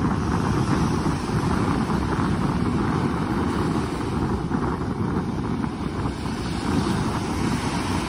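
Small waves breaking and washing up a sandy beach, with wind buffeting the microphone in a steady low rumble.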